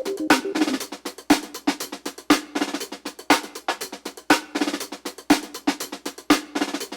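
Background music track with a driving drum beat, strong hits about once a second with lighter drum strokes between, over a low steady pitched part.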